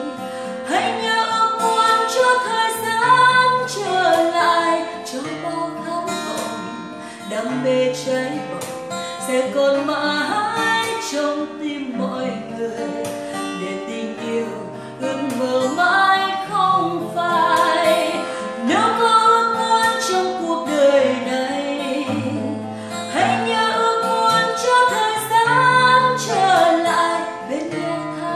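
A woman singing a Vietnamese song, accompanied by an acoustic guitar.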